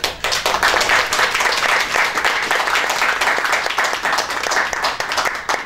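Audience applauding, starting suddenly and going on steadily as a dense patter of many hands clapping.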